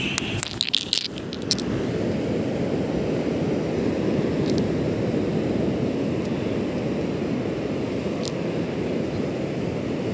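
Steady low rumble of wind buffeting the phone's microphone on the beach. A few sharp clicks come in the first second and a half.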